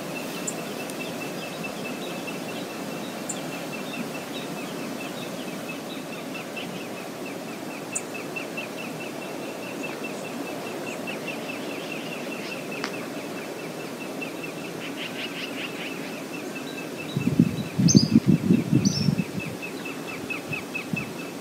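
Steady outdoor background hiss, with a bird's fast, repeated high ticking call and a few sharp chirps. About three-quarters of the way through come a couple of seconds of loud, low, pulsing rumbles.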